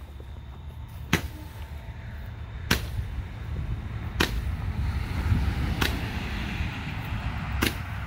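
A consumer firework firing single shots upward: five sharp pops, evenly about a second and a half apart.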